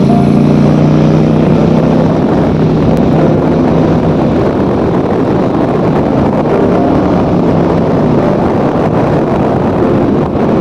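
Steady engine and road noise of a moving motorcycle, with wind rushing over the microphone.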